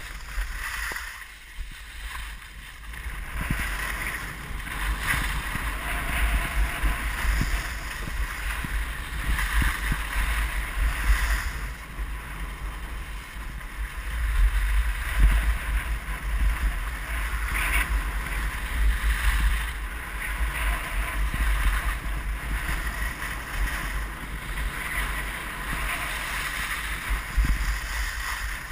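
Wind buffeting the microphone during a fast downhill run on snow, with a steady hiss and scrape of edges sliding over hard-packed snow. It eases briefly about two seconds in and is loudest about halfway through.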